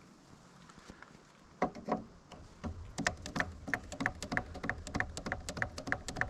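Hand grease gun being pumped into a backhoe joint's grease zerk: a quick run of sharp clicks, about three or four a second, starting about a second and a half in.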